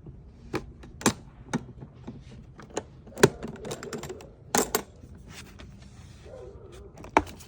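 Irregular sharp clicks and knocks, about a dozen spaced unevenly, the loudest a little past three seconds in and one near the end, over a low steady hum.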